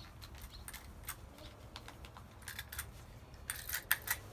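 Small plastic clicks and rattles of a hand-wound flashlight being handled and its button pressed, with a quick run of clicks near the end.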